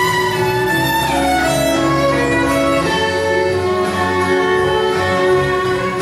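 Violin played with a bow, a slow melody of long held notes with a few gliding slides, over a steady low accompaniment.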